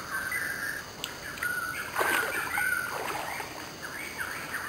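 A hooked fish splashing and thrashing in shallow creek water as it is hauled out on the line, loudest about two seconds in.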